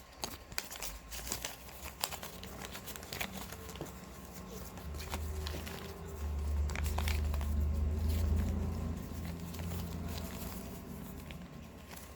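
Paper dollar bills crinkling and rustling as they are handled and counted, with scattered small clicks. A low rumble swells in the middle and fades again.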